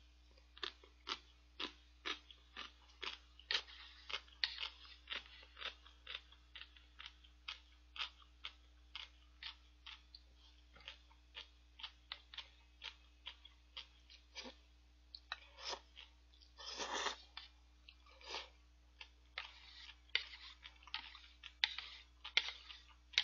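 Close-miked crunchy chewing of pickled yellow radish (danmuji), several slices at once, with a crisp crunch about twice a second. A longer breathy noise comes about sixteen seconds in.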